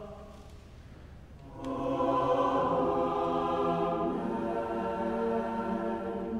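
Church choir singing a choral response in Anglican Preces and Responses: many voices enter together about a second and a half in and hold a sustained chord. Before that, the echo of the previous line dies away.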